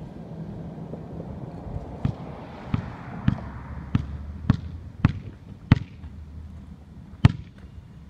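A basketball being dribbled: seven even bounces about every half second from about two seconds in, then a short pause and one louder bounce near the end.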